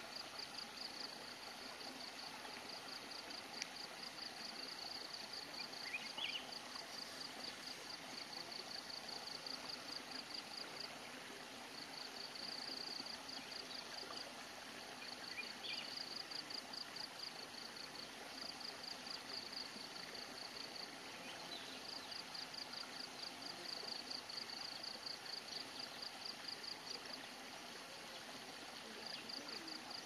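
Shallow stream water running steadily. Over it, a high rhythmic chirping at about four pulses a second comes in long runs with brief breaks, and there are a few faint short chirps.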